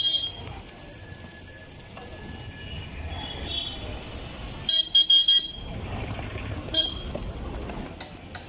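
Street traffic with vehicle horns honking over a steady low rumble: a short honk at the start, then a loud burst of about three quick honks about five seconds in.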